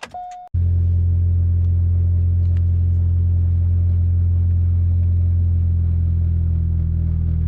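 Supercharged 2.0-litre four-cylinder of a 2005 Chevy Cobalt SS running at a steady cruise, a loud, even low drone with road rumble heard from inside the cabin, cutting in about half a second in.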